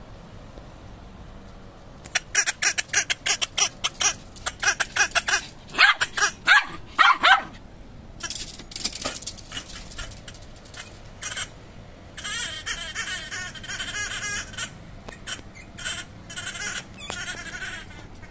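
Squeaky rubber duck dog toy squeaking over and over in quick runs as a small terrier bites and chews it, with short pauses between runs.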